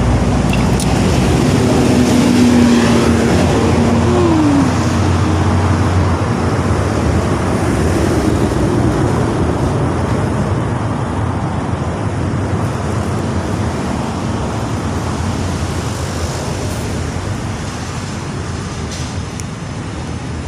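Steady noise of road traffic going by, loudest in the first few seconds and easing slightly toward the end.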